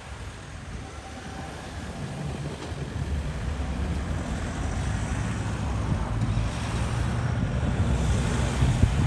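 Low diesel engine rumble from an approaching TasRail TR class locomotive, growing steadily louder, mixed with road traffic passing close by and wind on the microphone. Tyre hiss rises over the last few seconds as cars go past.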